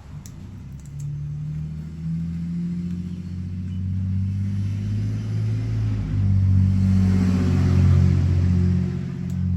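A nearby engine drones with a low, steady note. Its pitch shifts up and down in steps, and it grows louder toward the end before fading.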